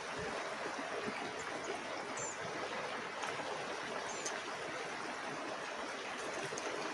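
Mountain river flowing steadily: an even, unbroken rush of water.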